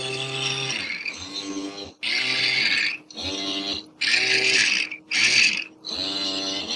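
Robotic arm servo motors whining through a run of short movements, about six in a row, each lasting under a second and bending up and down in pitch as it starts and stops.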